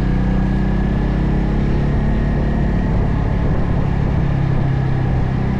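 Vehicle engine running steadily on the road, a low hum whose pitch eases slightly lower about halfway through, with road and wind noise over it.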